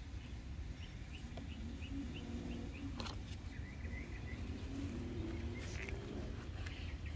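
Faint birdsong: a run of short, high chirps repeating a few times a second, with lower warbling calls coming and going. One light click about three seconds in.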